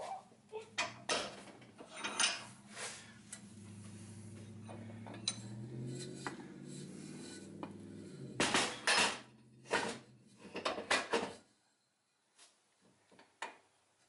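Metal clanks and clicks as a driveshaft and new U-joint are handled and worked in a steel bench vise to seat the bearing caps for their clips. The knocks are scattered, with a loud cluster of clanks a little past halfway. A low hum runs underneath and stops near the end.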